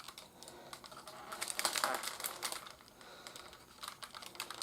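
Light clicking and rattling of hard plastic toys being handled, a little busier about two seconds in.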